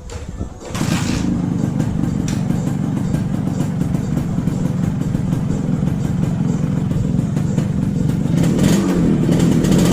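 Motorcycle engine running steadily, cutting in abruptly about a second in.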